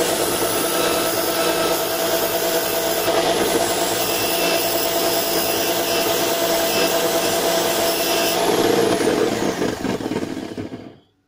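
Electric drill spinning a circular-saw motor's armature as a makeshift lathe, with a flat file rasping against the copper commutator to true its worn, pitted surface. About eight and a half seconds in, the steady whine falls in pitch and the sound dies away shortly before the end.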